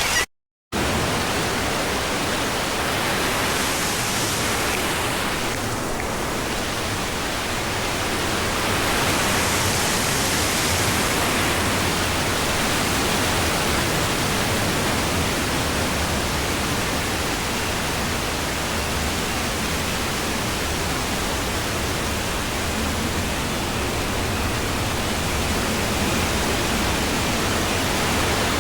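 Steady loud rushing noise, even across low and high pitches, with a brief cut to silence just after the start and two slight swells in the hiss a few seconds in.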